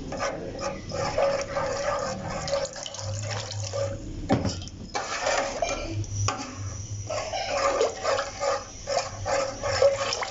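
Metal ladle stirring and scraping a thin wheat-flour and water mixture in a metal pot, sloshing the liquid and clinking against the pot's sides as it breaks up lumps of flour.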